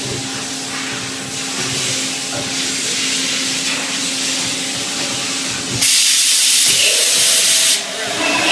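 Mazak H1250 horizontal machining center running with a steady hum. About six seconds in, a loud hiss starts suddenly and cuts off about two seconds later, and a second short hiss comes near the end.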